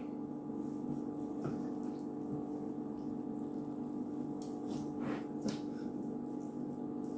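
A steady electrical hum made of several low tones, with a few faint scrapes and taps of a knife slicing through a roast beef tenderloin on a wooden cutting board.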